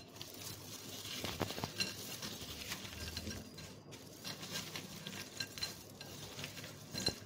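A plastic spoon stirring and tossing crisp fried macaroni in a bowl, with light rattling and scattered small clicks against the bowl.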